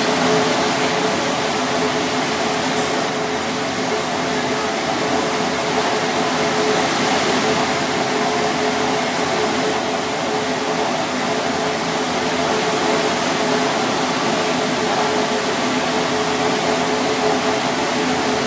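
Steady whirring hum of kitchen machinery, with a few low tones held throughout.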